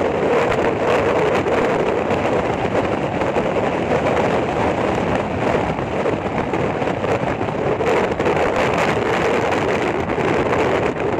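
Steady road and wind noise of a car driving at speed, heard from inside the car, with wind buffeting the microphone.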